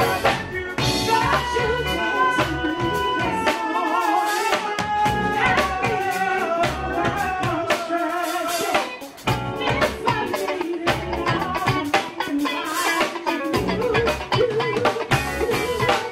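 Live band playing an upbeat song: drum kit keeping a steady beat under electric guitar, bass and keyboards, with a melodic lead line on top.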